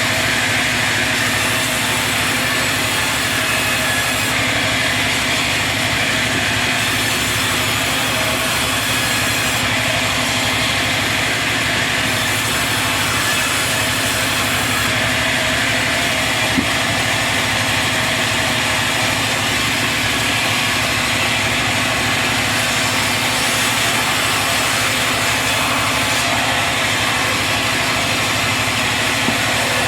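Sawmill machinery running with a steady mechanical hum, with one brief click a little past halfway.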